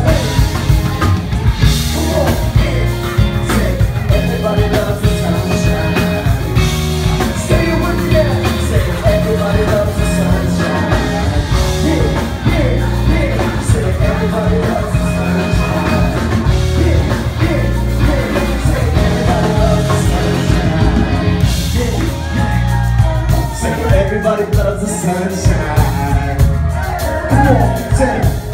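Live band playing loudly: drum kit, bass guitar and electric guitar, with a vocalist singing over it.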